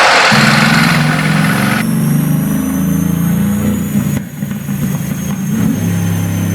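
Mercedes-AMG GT's twin-turbo V8 running at low revs through its exhaust, its pitch shifting a little. The note turns rough and ragged for a moment about four seconds in. A loud rushing noise cuts off just at the start.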